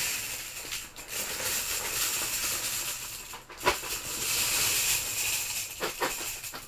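A heap of about a kilo of plastic SIM cards rattling and sliding against each other as they are handled, a steady high rustle that dips briefly twice.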